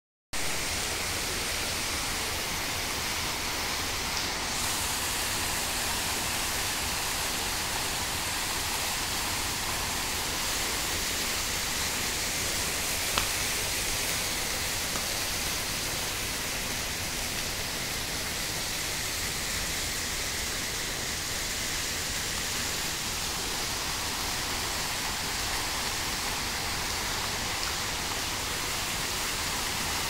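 Ornamental fountain jets splashing into a pool: a steady hiss of falling water, with one brief click about thirteen seconds in.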